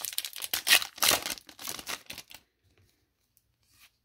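Foil wrapper of a trading card pack being torn open and crinkled by hand: a quick run of sharp crackles that stops about two and a half seconds in.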